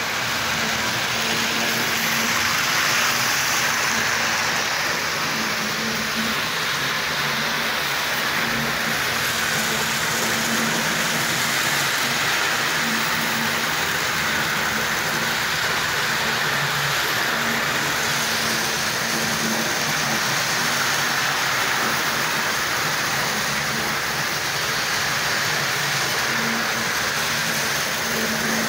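Tri-ang model trains running on the layout's track: a steady whirring rush of the small electric motors and metal wheels on the rails, with a faint hum that comes and goes.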